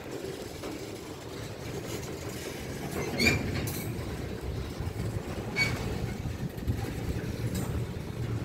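Freight train of tank cars and covered hoppers rolling slowly past, a steady low rumble of wheels on rail. Two brief metallic squeals come about two seconds apart, a little past the middle.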